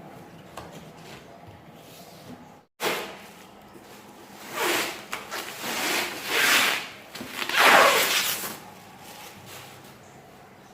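Cardboard packaging being pulled and worked off a new dishwasher: several noisy swells, each about a second long, beginning after a short gap about three seconds in.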